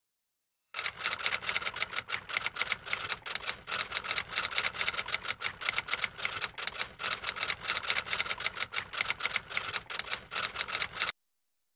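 Typewriter typing sound effect: a fast, even run of keystroke clicks starting about a second in and stopping abruptly near the end. The clicks turn brighter and sharper about two and a half seconds in.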